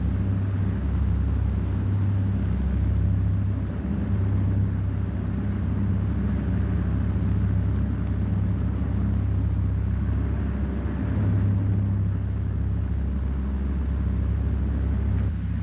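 Piston aero engines droning steadily, a low even drone with no change in pitch, as heard on a flying boat cruising in flight.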